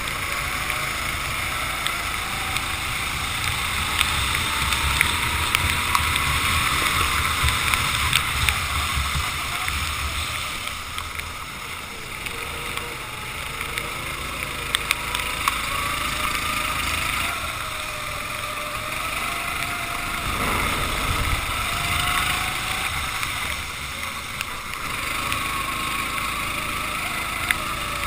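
Racing kart engine revving up and falling off again and again, its pitch rising and dropping through the corners, over a steady hiss of wind and spray from the wet track.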